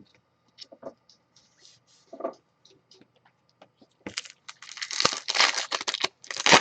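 Light ticks of trading cards being handled, then from about four seconds in a loud crinkling and tearing of a baseball card pack's wrapper as it is ripped open.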